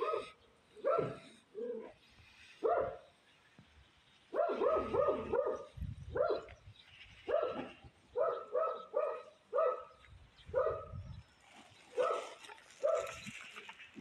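A dog barking in quick runs of short barks, several runs with pauses between them.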